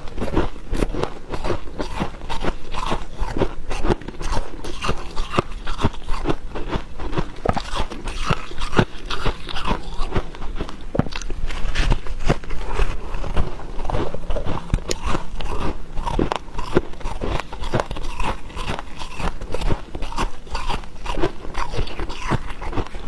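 A person biting and chewing mouthfuls of dry freezer frost: a dense, irregular run of squeaky crunches, several a second.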